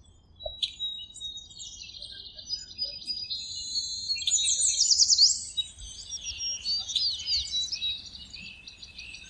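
Birds chirping and singing, several calls overlapping, with a run of quick high sweeping notes about four to five seconds in.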